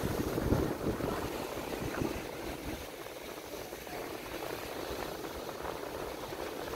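Surf washing onto a sandy beach, a steady hiss, with wind buffeting the microphone in the first couple of seconds.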